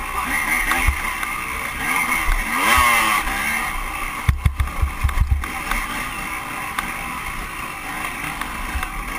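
Dirt bike engine revving hard, with rising pitch sweeps as it pulls in the first three seconds. Several low thumps follow about four to five seconds in, then a lower, steadier engine note.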